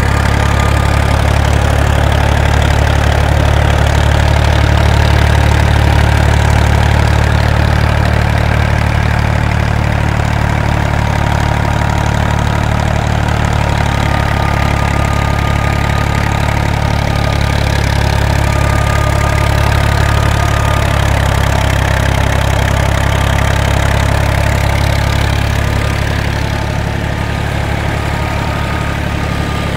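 New Holland 480 Special tractor's diesel engine running steadily, driving a thresher machine, with the thresher's drum and pulleys spinning. A thin, steady high whine sits over the engine's low running sound.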